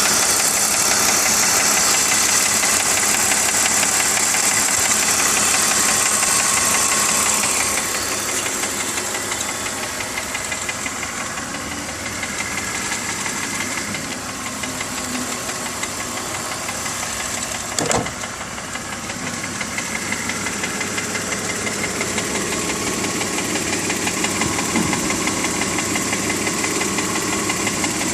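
BMW M54 2.5-litre straight-six in an E46 325Ci idling warm, with a rapid ticking from the front of the engine that is heard only at idle. The sound gets quieter about eight seconds in, and a single sharp click comes about eighteen seconds in.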